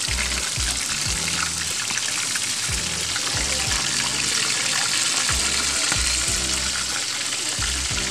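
Floured chicken pieces deep-frying in hot oil in a wok: a steady, noisy sizzle with crackling.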